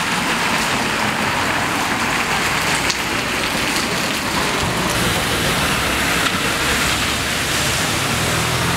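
Steady rain falling on a wet street, an even hiss with no breaks.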